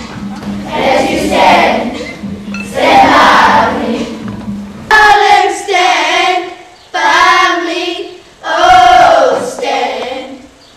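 A group of children singing together. The first half is a rough, noisy mass of many voices; from about halfway through come clear held sung notes in short phrases, with brief breaks between them.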